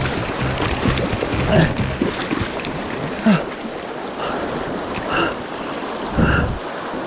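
Rushing mountain stream water, a steady loud noise, with a few brief pitched sounds over it about a third of the way in and again near the end.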